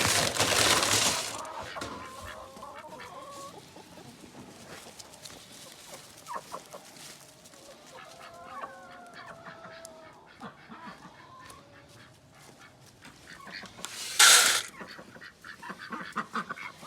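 Chickens clucking and making soft, wavering calls, with a loud rustling noise in the first second and another short loud noise burst near the end.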